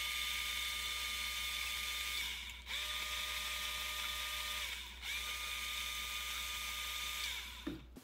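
Schwintek RV slide-out motor, a small 12-volt DC gear motor, running off a DeWalt battery through a 20-to-12-volt converter and a momentary reversing switch. It whines steadily in three spells of about two seconds each, with short pauses as the switch is released, and its pitch sags as it stops.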